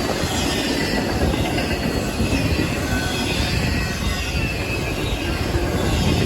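Intermodal freight train's cars rolling past close by: a steady rumble of steel wheels on rail, with a faint high squeal from the wheels.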